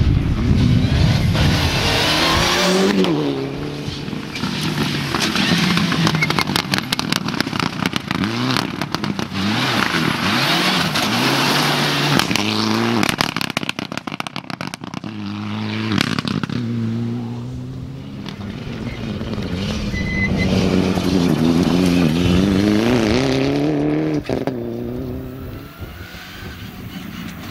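Mitsubishi Lancer Evolution rally cars' turbocharged four-cylinder engines revving hard and falling back at each gear change as the cars pass one after another. A run of sharp cracks and pops comes in the middle.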